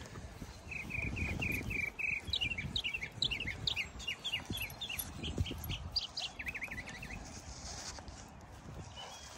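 A songbird singing one phrase. It opens with a quick run of repeated chirps, goes into a string of varied short whistled notes, and ends in a brief trill. Low rustling of footsteps in grass runs underneath.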